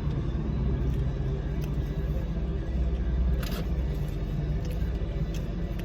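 Steady low rumble of a car heard from inside the cabin, with a short click about three and a half seconds in.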